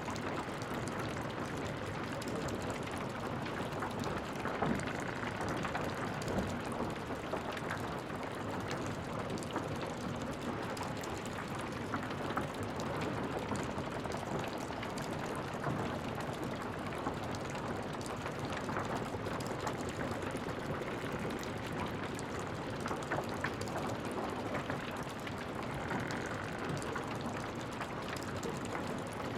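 Smouldering remains after a fire: a steady bed of hiss with dense, scattered small crackles and pops from burning embers.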